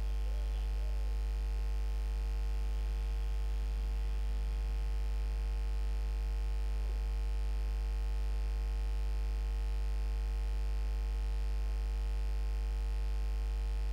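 Steady low electrical hum with a stack of even overtones, the kind picked up by a microphone in a desktop recording setup.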